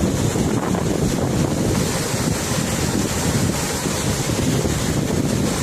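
Rushing floodwater, a loud steady wash of noise, with wind buffeting the microphone.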